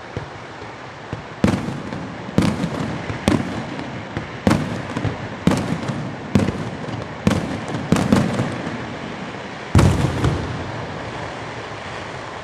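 Aerial firework shells bursting in a display: about ten sharp bangs, roughly a second apart, each trailing off before the next. The last and loudest comes near the end, after a short pause.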